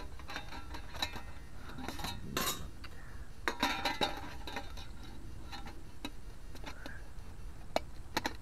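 The thin metal panels of a Lixada folding camping stove clink and click against each other as they are slotted and fitted together by hand. The sounds come as irregular light knocks, a few at a time.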